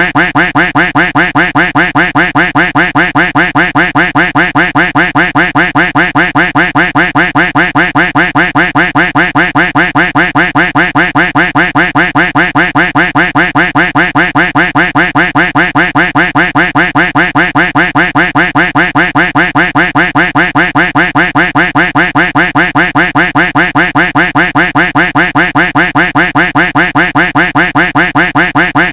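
Duck quack sound effect looped, quacking over and over in a rapid, even rhythm several times a second.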